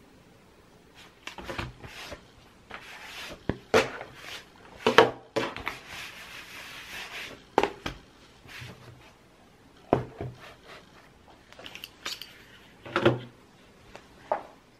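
Things being handled and set down on a desk: irregular knocks and taps, with some rubbing and rustling in between.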